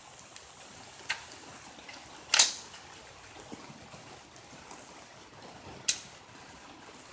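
Troy pump-action AR-15 firing two .223 shots, about two and a half seconds in and again near six seconds, with a short ring after the first. Fainter mechanical clicks fall between them.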